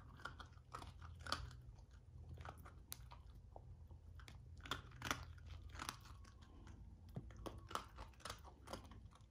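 A Shiba Inu puppy chewing and crunching crumbs of a hard dog biscuit, in irregular sharp crunches.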